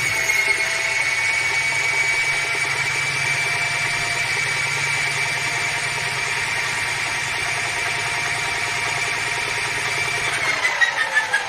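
Mini washing machine's motor running at a steady whine in its spin cycle, then winding down about ten seconds in: the pitch falls and the drum gives an uneven rattling pulse as it slows.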